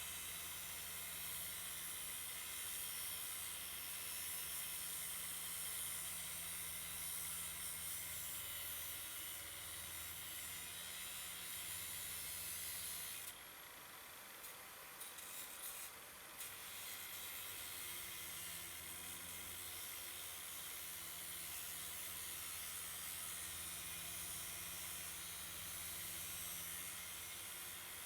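9-inch APT angle grinder cutting through scrap metal: a steady hissing grind over the motor's low hum. Near the middle the grinding drops away for about three seconds, then resumes.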